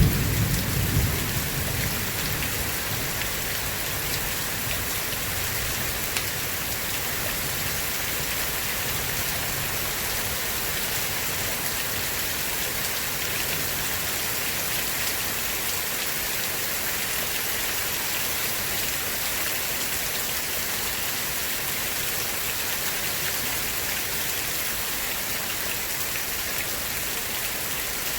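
Steady rain falling, an even hiss of drops on a surface. A rumble of thunder dies away in the first couple of seconds.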